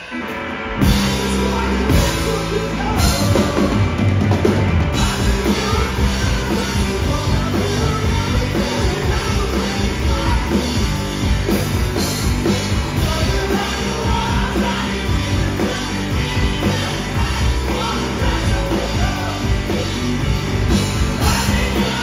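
Live rock band playing loud: electric guitar, bass guitar and drum kit. After a brief drop at the start, the full band comes back in about a second in and drives on steadily.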